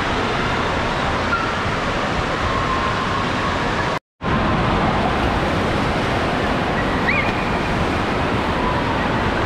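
Steady wash of rushing and splashing water in an indoor water park hall, broken by a brief dropout about four seconds in.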